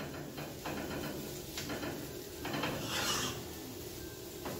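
A spoon scraping and stirring in a skillet of frying vegetables, with a few light knocks and a longer rasping scrape about three seconds in.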